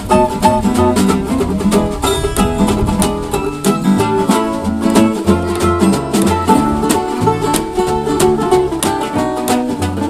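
Small acoustic band playing an instrumental break with no singing: picked and strummed acoustic guitar and a plucked-string lead over a snare drum keeping a steady beat.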